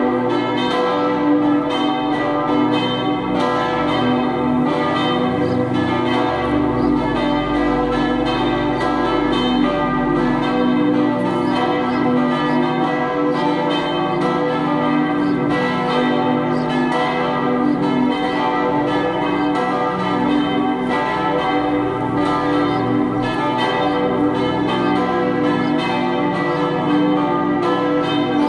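Several large church bells swinging in lancé franc, ringing together in a continuous peal of overlapping strikes; the Comtois-cast bells are from 1804 and 1855, tuned to B, D, E and G.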